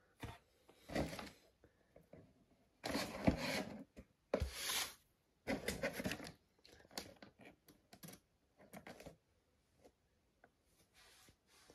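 Irregular rustling and scraping from things being handled, in a series of short bursts, loudest between about three and five seconds in, with fainter ones after.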